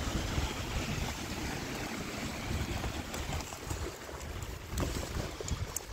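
Wind rumbling and buffeting on the microphone over a steady wash of sea noise on the shore, with a few faint clicks near the end.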